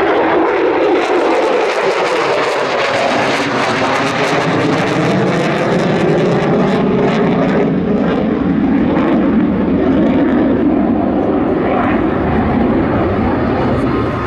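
Polish Air Force F-16 fighter's jet engine roaring during a display flight: a loud, continuous rumble with a crackling edge, its pitch drifting slowly as the jet moves.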